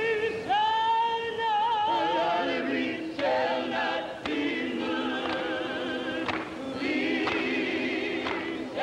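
Singing voices holding long notes with a wide vibrato, joined by more voices in harmony about two seconds in: a gospel-style choir.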